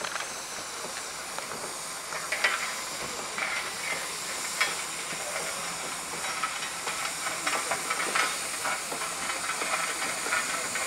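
Steam traction engine under steam, hissing steadily, with a few short sharp clicks and knocks.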